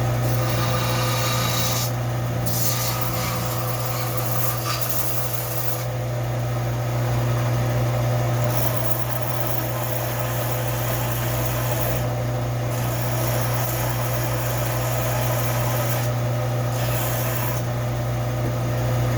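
Sandpaper rubbing over a rusty steel adze blade to clean off the rust: stretches of scratchy rubbing with a few short pauses. A steady low hum runs underneath.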